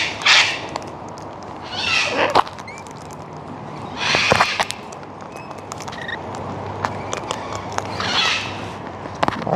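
Cockatoos squawking: four harsh calls, roughly two seconds apart, with small clicks and taps between them.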